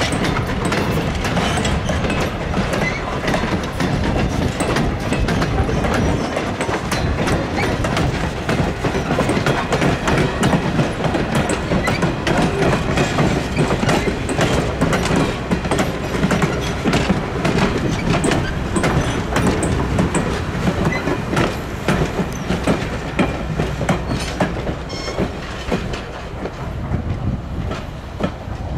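Wooden passenger coaches of a steam train rolling past at low speed, the wheels clicking and clattering over the rail joints, fading as the train moves off near the end.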